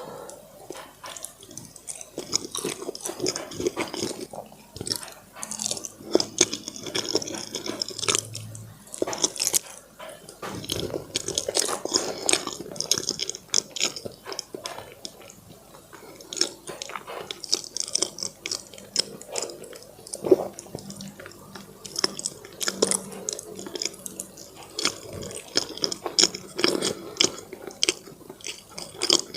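Close-miked chewing: a person eating, with many small wet mouth clicks and smacks, as in a no-talk mukbang.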